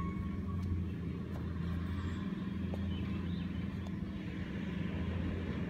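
A motor vehicle engine idling steadily: a low, even hum.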